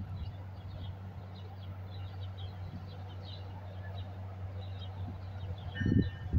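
Small birds chirping over a steady low hum. Near the end a low rumble and a steady, high, several-note tone start up.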